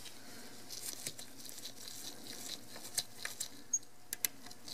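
Faint, scattered small clicks and scraping of a precision screwdriver working the tiny screws that hold a Canon 6D's shutter assembly, with a quick cluster of clicks past the middle.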